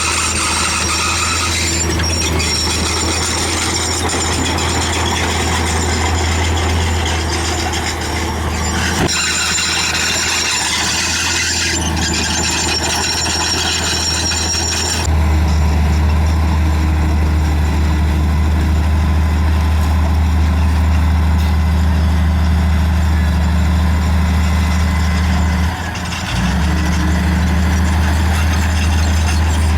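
Crawler bulldozer's diesel engine running, with a high squeal from the steel tracks and undercarriage over it for the first half. About halfway through, the squeal fades and the engine gets louder and steadier, dipping briefly near the end.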